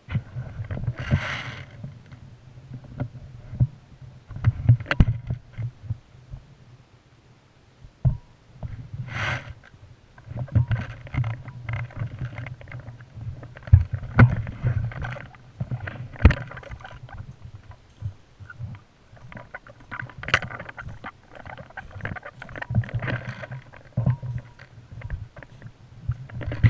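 Muffled rumbling, knocking and rustling of a body-mounted action camera being jostled in its housing as the wearer moves, with scattered sharp clicks and knocks.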